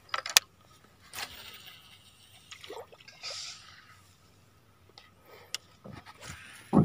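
Lure fishing from a small boat: a few sharp clicks and knocks of rod and reel handling near the start, then a brief hissing splash about three seconds in as a cast lure lands on the water.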